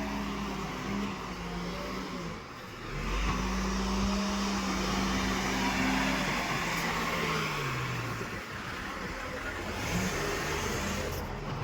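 Diesel engine of a loading machine running, revving up about three seconds in, holding the higher revs for a few seconds, then dropping back.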